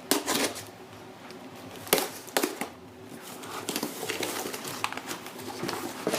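A cardboard box being opened and its packing handled: a few sharp knocks and scrapes of cardboard in the first half, then soft, steady rustling and crinkling.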